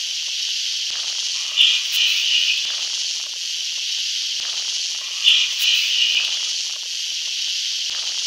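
Steady static hiss, like old videotape noise, with two brief louder bursts of noise about 3.7 seconds apart, suggesting a looped noise track.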